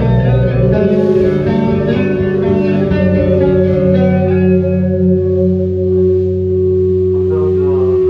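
A live rock band's electric guitars and bass guitar playing loudly. After the first second the chords and a bass note are held and ring out, and a guitar note bends in pitch near the end.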